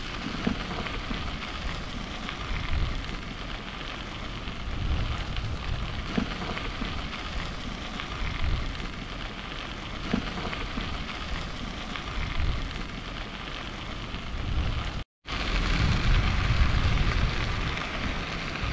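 Wind buffeting the microphone of a camera riding along on a moving bicycle, mixed with tyre noise from the trail surface: a steady rushing noise with low gusts. It drops out for an instant at an edit about three-quarters of the way through, then comes back louder.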